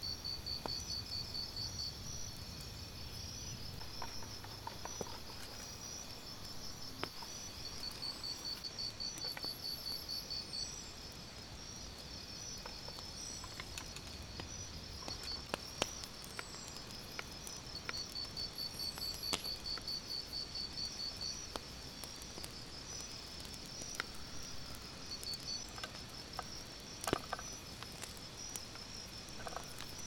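Crickets chirping in steady pulsed trills, with occasional sharp clicks of a knife cutting on a wooden board.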